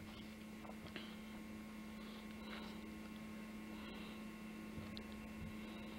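Steady low electrical hum with faint hiss and a few faint clicks: the background noise of the recording between narration lines.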